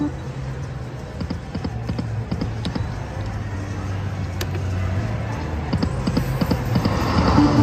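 Slot machine game sounds: a run of light, irregular clicks over a steady low hum, with the machine's tune rising back in near the end.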